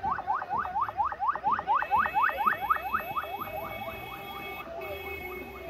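Ambulance siren in fast yelp mode: rapid rising whoops, about six a second, that fade away around four seconds in.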